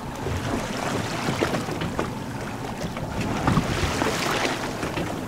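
Wind buffeting the microphone over choppy open water, with irregular small slaps and splashes of water.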